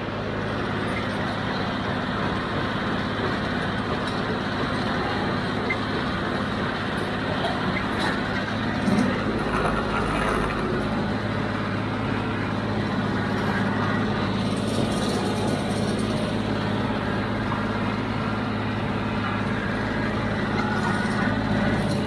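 John Deere 5055D tractor's three-cylinder diesel engine running steadily under way, heard from the operator's seat, with a brief louder bump about nine seconds in.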